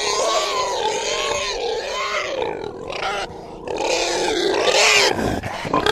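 Pig vocalising: a run of grunting calls with a wavering pitch that dips in loudness a little past the middle, then grows louder near the end.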